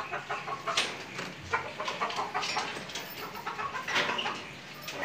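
Chickens clucking and calling from backyard coops, with scattered short clicks and knocks.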